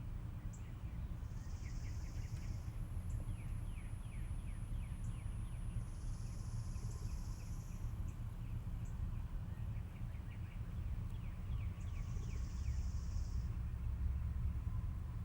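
Outdoor backyard ambience with a steady low rumble, birds chirping in quick runs of falling notes, and three short buzzy high-pitched calls spaced several seconds apart.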